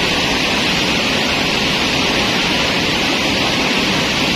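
Fast river water rushing over rocks, a steady loud hiss.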